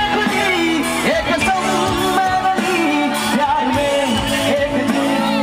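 Live Hindi pop song played by a band through a stage sound system, with a male singer's voice carrying a wavering melody.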